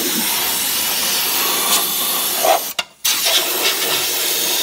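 Rust-proofing spray gun hissing as it sprays Fluid Film through a flexible extension wand inside a vehicle frame rail, stopping briefly about three seconds in before carrying on.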